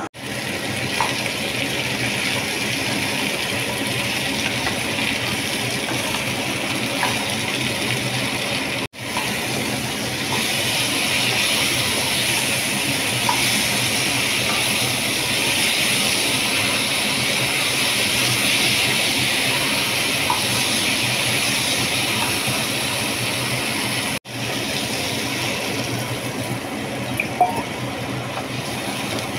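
Steady hissing over a low hum, louder and brighter in the middle stretch as raw banana pieces fry with onion, tomato and spices in a pan: a frying sizzle. A few light spatula clicks come now and then, and the sound breaks off for an instant twice.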